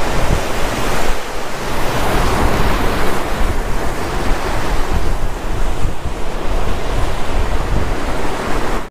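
Sea waves surging in and crashing over rocks, foaming through the gaps between them, with wind buffeting the microphone as a low rumble.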